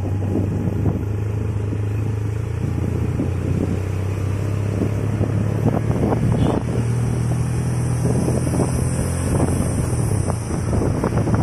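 Small motor scooter engine running at a steady cruise, with wind buffeting the microphone.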